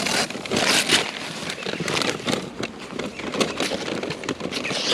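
Green husks being torn and peeled off an ear of fresh corn by hand: a run of rustling and tearing crackles.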